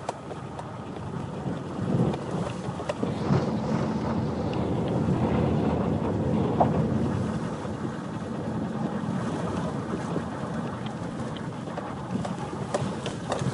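A car driving over a rough, sandy gravel dirt road, heard from inside the cabin: a steady rumble of tyres and suspension as the car shakes over the bumps, with wind blowing outside.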